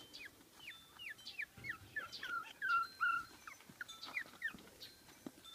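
30-day-old Pomeranian puppies whimpering: a run of short, high-pitched squeaks, most of them falling in pitch, loudest about halfway through.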